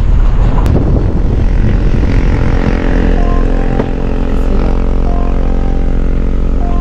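A motor running steadily under a loud, rough low rumble; from about three seconds in its even engine hum comes through clearly.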